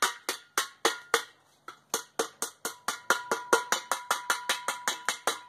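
Hammer blows on a small steel tank, about four a second with a short pause about a second and a half in, each strike leaving a metallic ring. He is tapping the tank's vent out, and the blows dent the end in.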